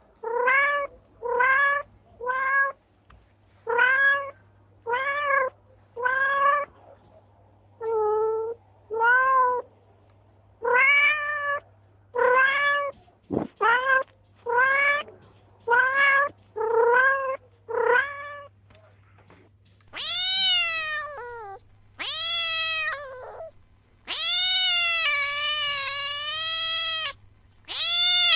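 Domestic cat meowing insistently, short meows about once a second. From about 20 seconds in these give way to longer, drawn-out yowls.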